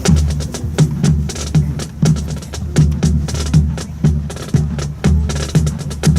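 Marching drum line playing a steady cadence: deep bass-drum beats with sharp snare and stick clicks in a repeating rhythm.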